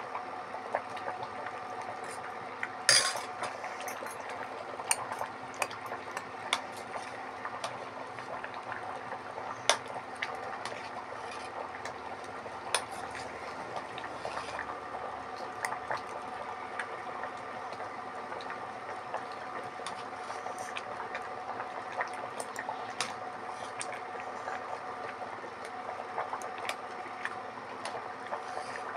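A thick tamarind gravy bubbling in a steel pot on an induction cooktop, with scattered small pops and the occasional clink of a ladle against the pot, over a steady hum. A louder clink comes about three seconds in.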